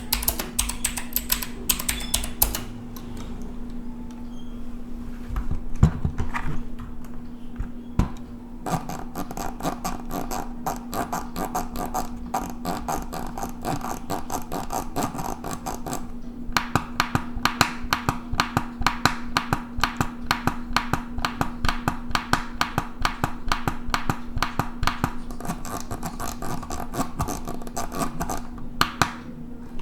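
Fast typing on a Redgear Shadow Blade full-size mechanical keyboard with blue clicky switches, a rapid run of key clicks. The keystrokes are sparser for a few seconds early on, then run on as dense, fast typing.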